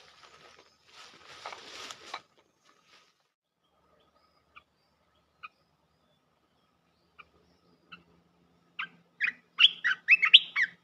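Olive-winged bulbul (merbah belukar) decoy calling from its trap cage: a few scattered single chirps, then a quick run of loud chirping notes near the end. About two seconds of rustling at the start.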